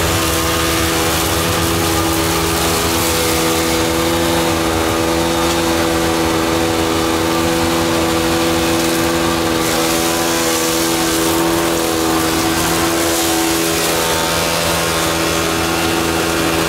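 A greenhouse plant-handling machine in a polycarbonate enclosure running steadily: an even motor hum with a hiss over it, the hiss a little stronger about ten seconds in.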